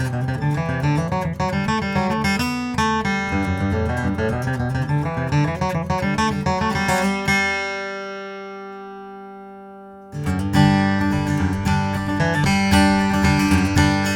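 Taylor 518e Grand Orchestra acoustic guitar with solid mahogany back and sides being played. A chord is left to ring and fade about seven seconds in, and strumming starts again about ten seconds in.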